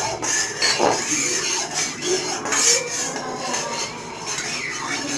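A spatula scraping and knocking lightly against a metal kadai, moving mustard oil around as it heats, with a few clinks.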